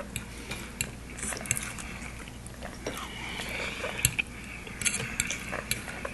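Scattered light clicks and clinks of cutlery and plates at a meal, a few sharp taps spread unevenly over a faint room background.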